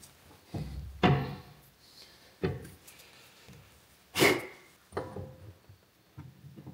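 Metal parts and hand tools clinking and knocking at a car's front wheel hub during fitting of a new wheel bearing: about six separate knocks, some with a short metallic ring, the loudest a little after four seconds in.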